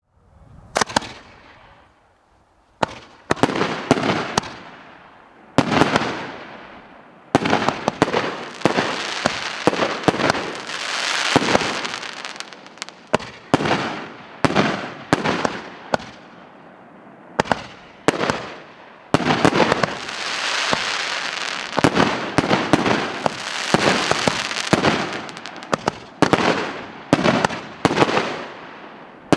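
A 36-shot, 2-inch-calibre firework cake firing its shells one after another. Sharp bangs come at uneven intervals, some in quick clusters, and each trails off over a second or two.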